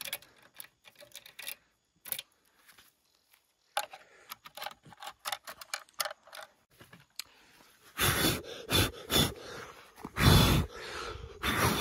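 Scattered clicks and small rattles of keys and a motorbike lock being worked. From about two-thirds of the way in, loud rubbing and handling noise as the dew-wet motorbike is wiped down.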